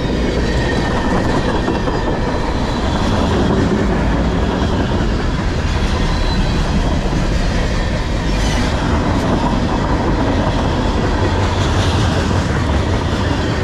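Freight cars of a CSX manifest train passing close by: a loud, steady rolling noise of steel wheels on the rails.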